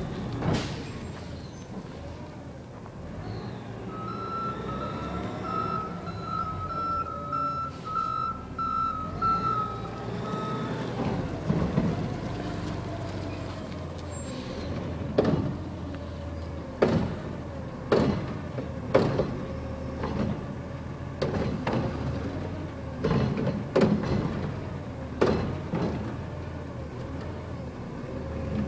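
Garbage truck backing up with its reversing beeper sounding in a steady series of beeps for about six seconds, its diesel engine revving up and down. Later, a run of sharp clanks and bangs, one every second or two, as the truck handles and dumps the curbside trash carts.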